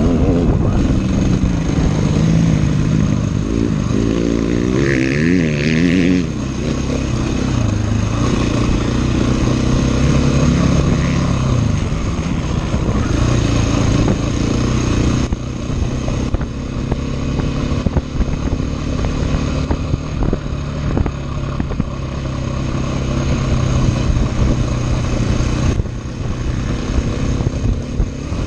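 Off-road enduro motorcycle engine running hard, its pitch rising and falling as the throttle is opened and closed over the course.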